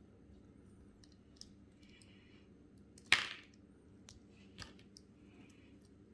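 Small LEGO plastic pieces being handled and pressed together by hand: scattered light clicks, with one sharp snap a little after halfway as a piece is pushed home.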